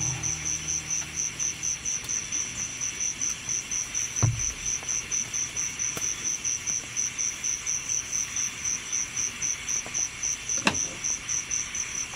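Cricket chirping in a steady, even pulse of about four chirps a second, with a single soft knock about four seconds in and a sharp click near the end.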